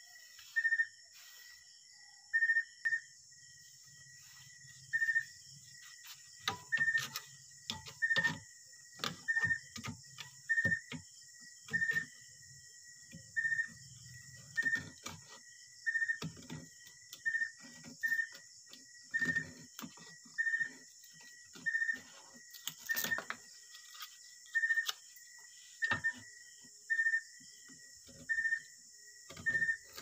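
A high chirp repeating about once a second over a steady high hiss, with scattered clicks, taps and scrapes of hand tools working a length of bamboo.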